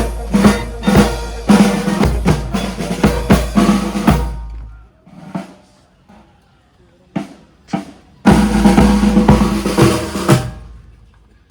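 Drums playing a loud, steady beat that breaks off a little over four seconds in, leaving a few single hits. The beat comes back loud about eight seconds in and stops near the end.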